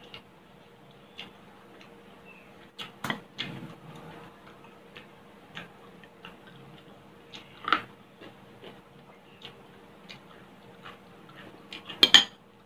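Close-up mouth sounds of chewing crispy pork belly: scattered crunches and clicks, with a louder cluster of clicks near the end as a metal spoon works in the bowl of kare-kare. A faint steady hum runs underneath.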